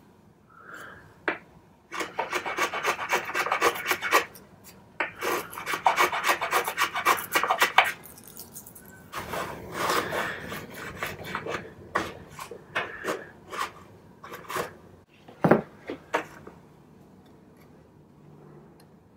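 Hand tool rasping and scraping across wood in quick runs of strokes, flattening the broken end of a chair's support leg, with a single knock about three-quarters of the way through.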